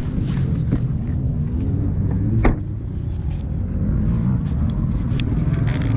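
Dirt bike engines running and revving unevenly in the paddock, under a steady low rumble. A single sharp clunk comes about two and a half seconds in.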